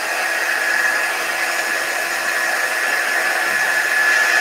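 Handheld craft heat gun running steadily, its fan blowing a rushing hiss with a steady high whine, drying freshly applied chalk paste.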